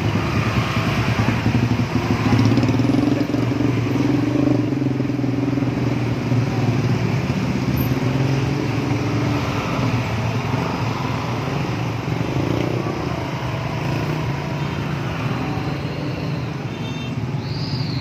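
Slow traffic in a jam: motorcycle and car engines running together in a steady wash of engine noise. A brief high chirp sounds near the end.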